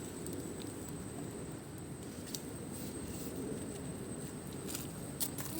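Outdoor background noise: a steady low rumble with a faint, thin high-pitched steady tone over it, and a few light clicks now and then.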